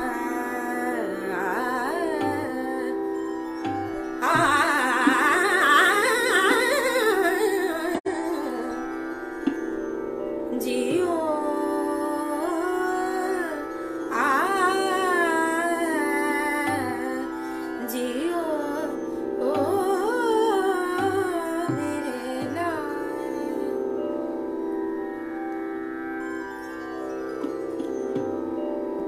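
A woman singing in an Indian classical style, with long sliding, ornamented phrases over a steady drone accompaniment. The singing stops about 24 seconds in and the drone carries on alone.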